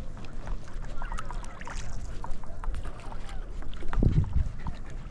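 Water lapping and splashing around a stand-up paddle board as it is paddled, with small drips and splashes throughout and a low thump about four seconds in.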